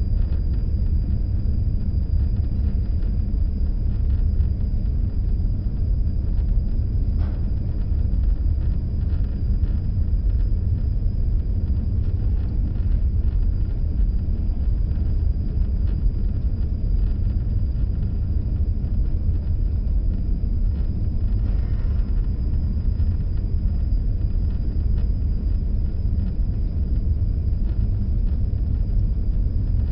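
Steady low rumble of a moving car, engine and road noise, with a faint steady high whine.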